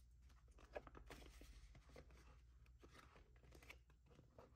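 Faint rustling and light ticks of paper banknotes and cash envelopes being handled, with one sharper tick just under a second in.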